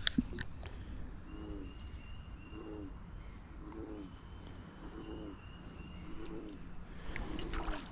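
A low cooing animal call, repeated evenly about once a second, about six times, over faint outdoor background noise. A single sharp click comes right at the start.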